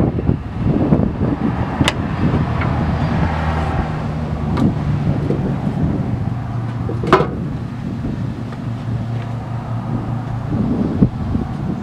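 Wind on the microphone over a low, steady hum, with three sharp clinks of tools and parts being handled at the truck's frame and steering gearbox, the loudest about seven seconds in.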